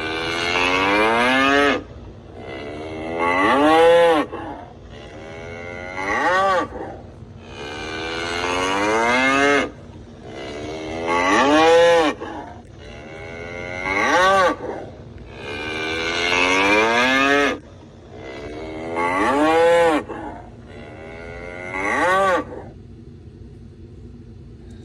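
A bull bellowing again and again: about nine loud, drawn-out calls a second or so apart, each rising in pitch toward its end.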